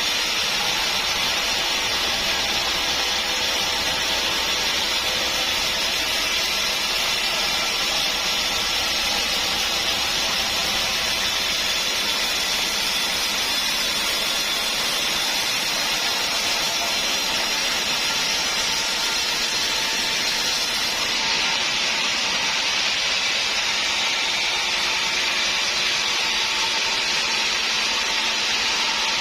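Sawmill saw cutting through a hard acacia stump: a steady, unbroken hissing rush. The highest part of the sound drops away about two-thirds of the way through.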